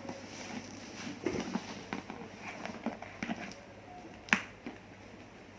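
Handling noise from a handbag being unboxed and examined: scattered light clicks, taps and rustles, with one sharp click about three-quarters of the way through.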